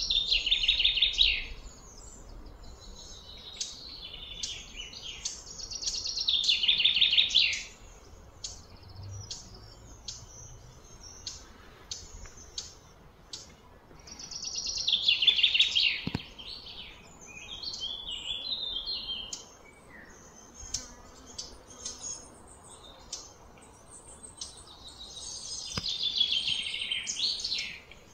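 Birds chirping, with a loud, high, rapid trill that falls in pitch over one to two seconds and comes back about every six to ten seconds, short chirps in between.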